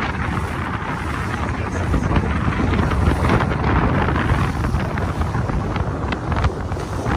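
Wind rumbling and buffeting on the microphone of a boat under way, over the rush and splash of water along the hull, with spray kicking up about four seconds in.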